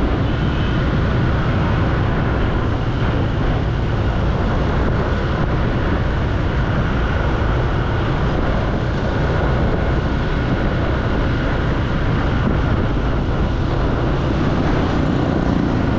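A motorbike riding through city traffic: steady engine and road noise, heard from the bike itself.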